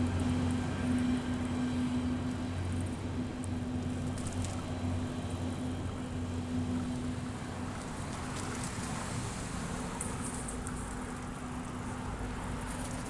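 Traffic noise: a vehicle's steady low hum that fades away about halfway through, over a constant hiss of road and wind noise.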